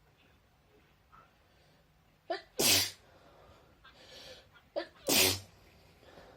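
A person sneezing twice, about two and a half seconds apart, each a short voiced intake then a sharp explosive burst. Sneezes set off by a nasal swab.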